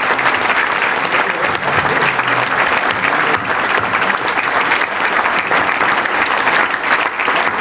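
A large audience applauding steadily, many hands clapping at once, in thanks to people standing to be recognised.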